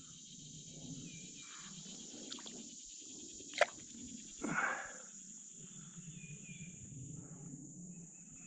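Insects keep up a steady high-pitched drone, with faint short chirps here and there. About three and a half seconds in there is a sharp click, and a second later a short rushing noise.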